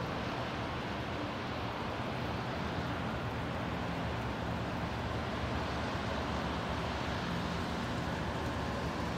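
Steady outdoor city background: a constant rush of distant traffic with a faint low hum, unchanging throughout.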